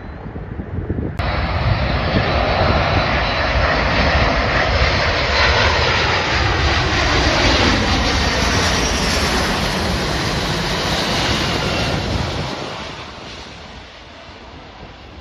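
Fixed-wing aircraft passing close by, its engine roar rising abruptly about a second in, sweeping down in pitch as it goes past, then fading away near the end.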